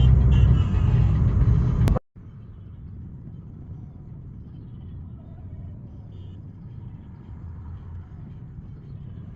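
Car road noise: a loud low rumble for about two seconds, then after a sudden cut a much quieter, steady low rumble.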